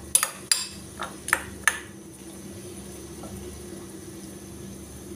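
Metal ladle clinking against a ceramic bowl while mashing soaked tamarind pulp, about six sharp knocks in the first two seconds. After that only a steady low hum remains.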